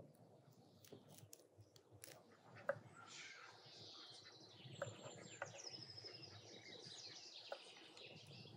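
Knife slicing radishes on a wooden cutting board, a few scattered sharp knocks of the blade on the board, with songbirds chirping and warbling from about three seconds in.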